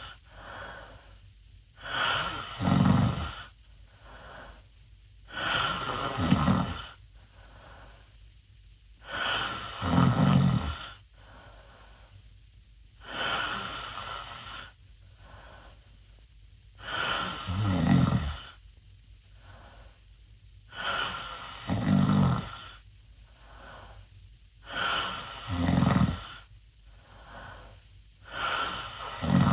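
A 16-year-old boy snoring loudly through an open mouth: a loud snore about every four seconds, with softer breathing between.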